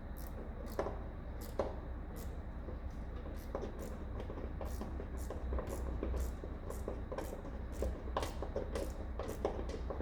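Irregular clicks and light knocks of hand tools and metal parts being handled while a V8's valve cover is refitted, over a low steady hum.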